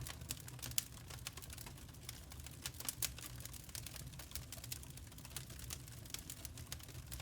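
Wood fire crackling: irregular sharp pops and ticks over a steady low rumble, with a louder pop about three-quarters of a second in and another about three seconds in.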